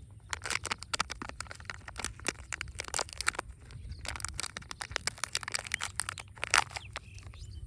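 Surprise-egg and candy packaging handled close to the microphone: a dense, irregular run of crinkles, crackles and clicks as wrappers and egg casings are opened by hand.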